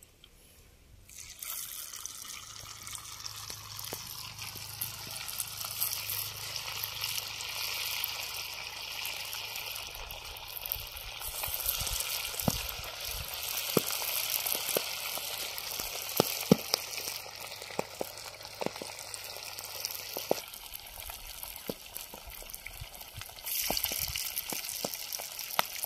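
Marinated river vaalai (ribbon) fish pieces deep-frying in hot oil in a clay pan: the sizzling starts about a second in as the pieces go in and runs on as a steady hiss with scattered crackling pops, swelling louder near the end.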